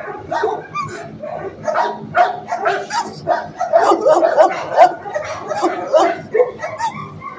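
Dogs barking and yipping in shelter kennels: many short barks in quick succession, overlapping one another.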